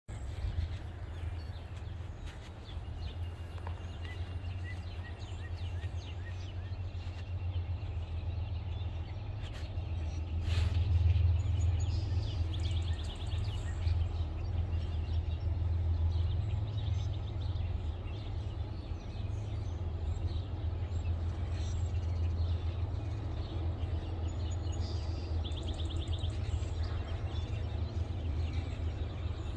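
Birds chirping and trilling now and then over a steady low rumble.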